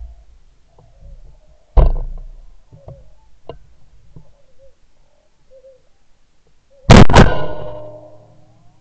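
A heavy thump about two seconds in and a few lighter knocks, then about seven seconds in a loud shotgun shot at a flying teal with a second sharp crack a quarter second after, ringing away over about a second.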